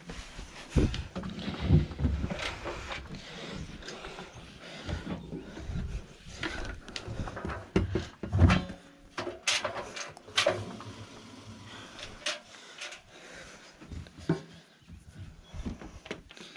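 Damp towels being pulled from a washing machine and stuffed into a tumble dryer drum: irregular soft thumps and fabric rustling, with a few sharp knocks about halfway through.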